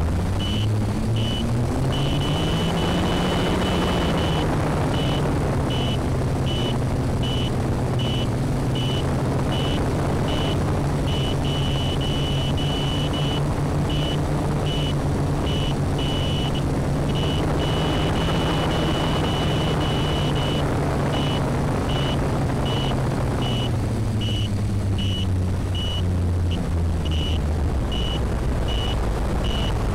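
FPV quadcopter's electric motors and propellers humming steadily in flight, with wind rushing past the onboard microphone; the hum drops in pitch near the end as the throttle eases. Over it, a high-pitched electronic beeper sounds, sometimes as a steady tone and sometimes as rapid on-off beeps.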